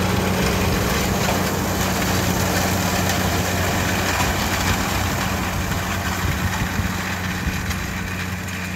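Diesel tractor engine running steadily while it pulls a hay tedder through cut grass, growing gradually quieter in the second half.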